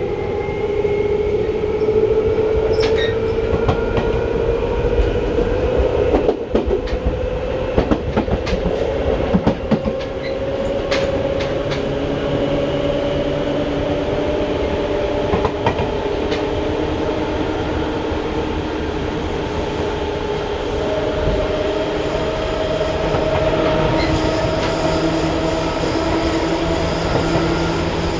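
Seibu 2000 series electric train in motion, heard from inside the car: a steady rumble with a traction-motor whine that climbs slowly in pitch as the train gains speed. A run of sharp clicks from the wheels comes about a quarter of the way through.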